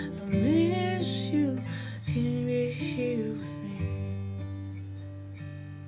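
Acoustic guitar playing chords that change about every two seconds and ring out, growing quieter toward the end.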